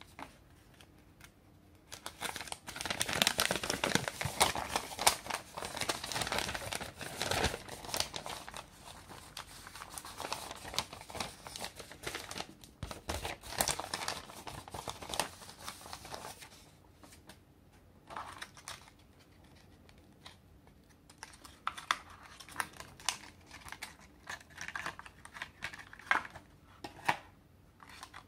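Clear plastic blister packaging crinkling and crackling as hands handle it: a dense stretch of crackling for about fifteen seconds, then sparser crackles and clicks.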